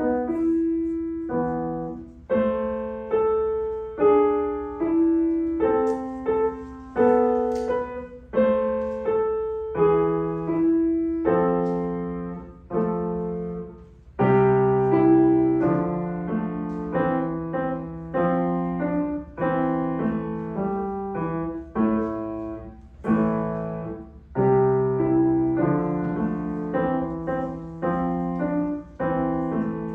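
Solo piano playing a classical student piece: a melody over bass notes, each note struck and left to fade, with a fuller, lower bass line from about halfway through.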